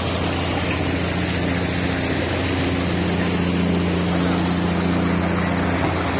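A boat engine running steadily, with water splashing and churning as giant groupers thrash in the pen being scooped out.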